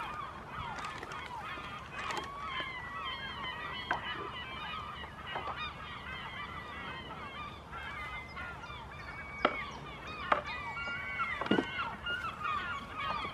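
A flock of birds calling without pause, many short calls overlapping, with a few sharp snaps as a goat chews and strips leaves from a branch.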